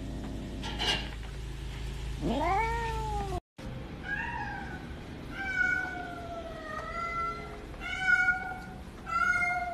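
Domestic cats meowing: one meow rising and falling in pitch, then after a brief break a cat calling out with a string of about five long, drawn-out meows, the last ones loudest. The owner takes these calls for the cries of a cat that thinks it has been left alone.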